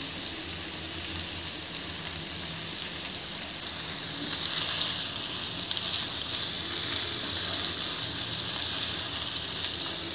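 Spiced cauliflower sizzling in a nonstick frying pan as it finishes cooking. A wooden spatula stirs it from about four seconds in, and the sizzle grows louder.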